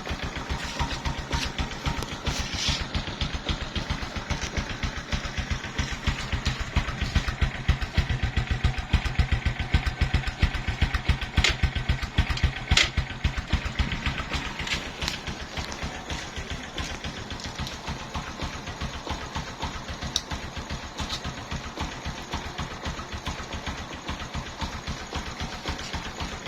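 A small engine idling with an even run of firing pulses. It gets somewhat louder for several seconds in the middle, with a couple of sharp clicks.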